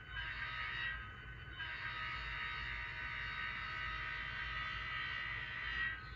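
Model diesel locomotive's sound-decoder air horn through a small speaker: a short blast, then a long one of about four seconds. A low steady rumble from the locomotive sound runs underneath.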